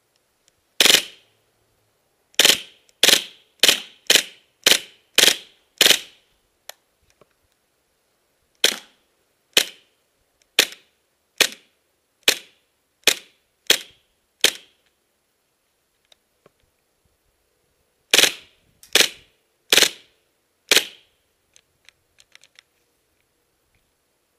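KWA KMP9R gas-blowback airsoft submachine gun fired one shot at a time, about twenty sharp cracks in three strings with short pauses between. A few light clicks near the end as the gun is handled.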